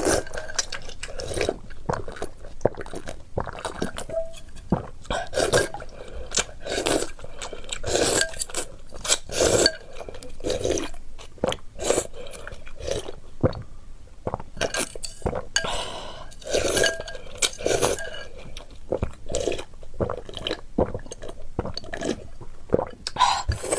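Slurping and chewing of spicy noodles, then slurping and gulping of chilli broth drunk straight from a glass bowl, in irregular bursts, with occasional clinks of chopsticks against the glass.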